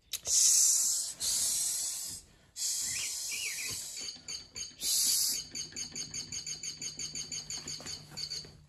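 Imitated snake hissing in several long loud bursts, then a rapid rattling buzz of about six or seven pulses a second over a faint steady hum.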